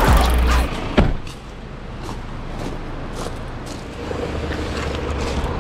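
Background music stops in the first second, with a click about a second in. After that comes a vehicle's low engine rumble with road noise, a little louder in the second half.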